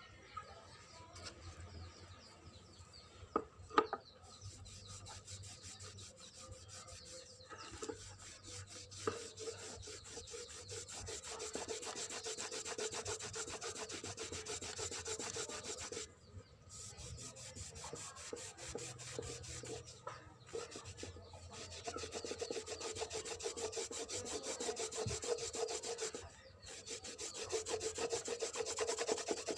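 Rapid, steady scraping of an abrasive against the piece being restored, pausing briefly a few times, with a couple of sharp knocks a few seconds in.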